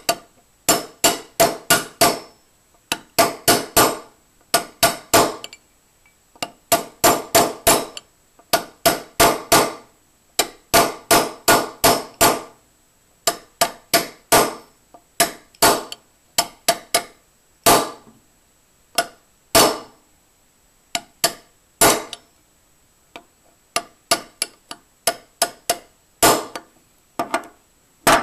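Small hammer tapping metal parts into an AR-15 lower receiver, each strike sharp with a brief metallic ring. The taps come in quick runs of two to five over the first half, then thin out to single taps.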